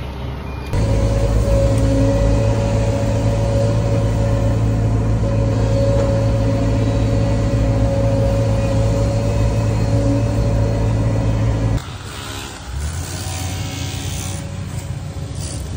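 Case CX145 excavator's diesel engine and hydraulics running steadily under load, with a steady whine, as the Digga PD12 hydraulic auger drive bores a hole, heard from the cab. About twelve seconds in it cuts off abruptly to quieter machine noise.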